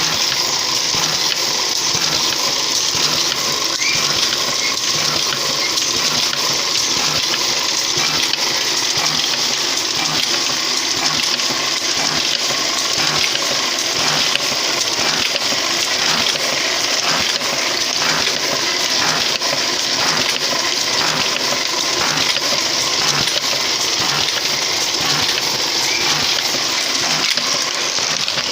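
A machine running steadily with a loud hissing noise and a faint regular beat repeating a little faster than once a second.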